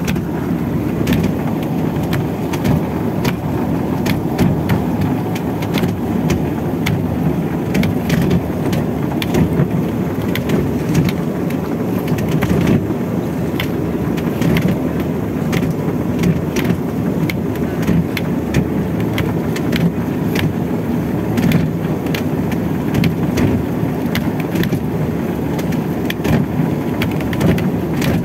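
Steady, loud rumble of the outrigger fishing boat's engine and deck winch as rope is hauled in around the winch drum, with frequent sharp clicks.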